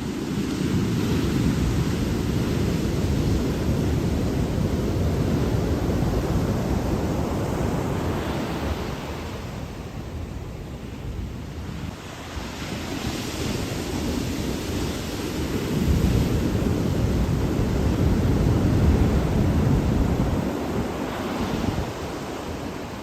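Ocean waves breaking on a shore in slow surges: the wash swells for several seconds, eases off about ten seconds in, then builds again in a couple of heavier surges.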